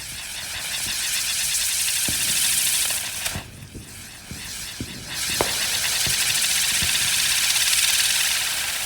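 Brothers Grand Stander firework wheel hissing loudly as its spinning drivers spray sparks, with a few faint pops. The hiss drops away for about two seconds around three seconds in, then comes back as the next stage of the wheel lights.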